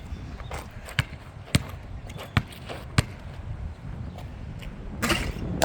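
Basketball being bounced on hard outdoor ground, a handful of sharp thuds spaced irregularly about a second apart, over low wind rumble on the microphone.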